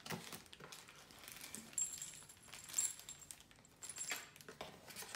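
Small metal parts and tools clinking and rattling in plastic bags as they are lifted out of a cardboard accessories box, with sharp clicks, the two loudest about two and three seconds in, and a faint high metallic ring between them.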